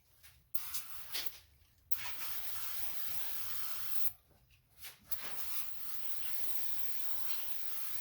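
Aerosol can of brake cleaner spraying in hissing bursts to degrease a vise part: two short squirts, a long spray of about two seconds, a brief squirt, then another long spray.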